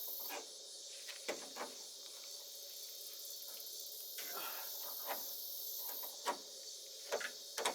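A series of light clicks and knocks, several seconds apart, from a hood latch and its release handle being handled and tried in place. Under them runs a steady high insect drone.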